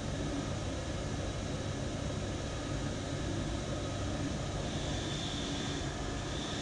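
Bench grinder motor running with a steady hum and whirr. About five seconds in, a higher hiss joins as a steel wheel nut is pressed against the spinning wheel to clean it up.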